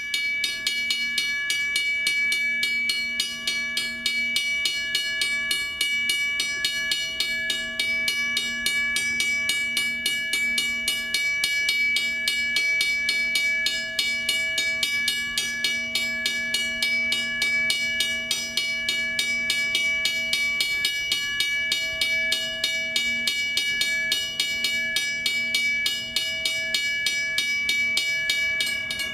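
Federal Signal mechanical level-crossing bell ringing: a fast, even string of hammer strikes on the gong, several a second, over a steady ringing tone. It is the crossing's warning for an approaching train, sounding while the red lights flash.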